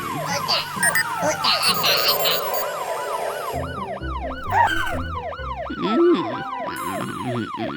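Cartoon fire truck's siren sounding a rapid up-and-down yelp, about three cycles a second, over cartoon music and clattering sound effects.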